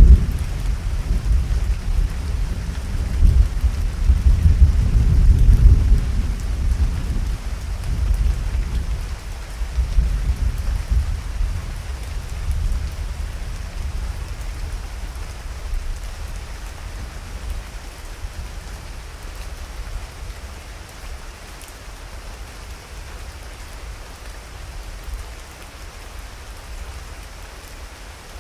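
Thunder rumbling over steady rain, loudest in the first few seconds and dying away by about halfway, leaving only the even hiss of heavy rain.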